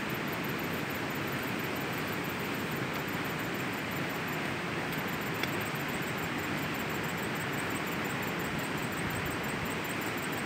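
Steady outdoor hiss with a faint, fast, high-pitched ticking repeating about four times a second, and one sharp click about five and a half seconds in.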